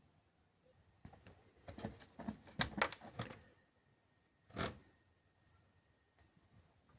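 Small clicks and rattles of hands handling the plastic case and screws of an Atari 65XE being opened, in a cluster over a couple of seconds, then one sharper click about a second later.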